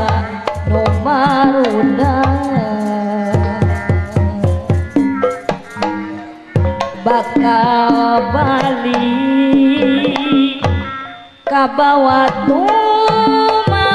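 Live Sundanese jaipongan music: kendang hand drums playing fast, dense patterns under the melodic instruments of a gamelan ensemble. The music thins out and drops away briefly about eleven seconds in, then the full ensemble comes back in loud.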